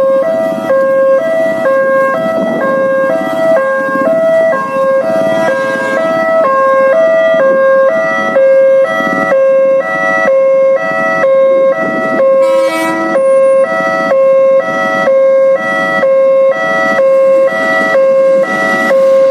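Indonesian railway level-crossing alarm sounding its standard fast two-tone warning, two pitches alternating rapidly and evenly: the barriers are down for an approaching train.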